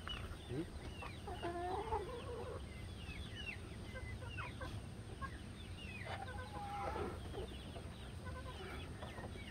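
Young chicken calling repeatedly in short, falling peeps, with a longer wavering cluck about two seconds in and again near seven seconds.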